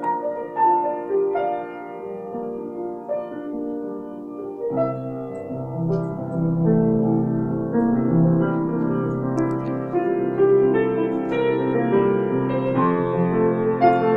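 Grand piano being improvised on. A lighter melody in the middle register is joined about five seconds in by low bass notes, and the playing becomes fuller and a little louder.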